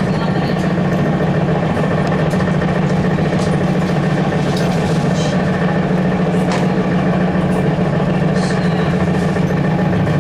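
Steady low hum and running noise inside the cabin of a ZiU-682G trolleybus, with a few faint clicks.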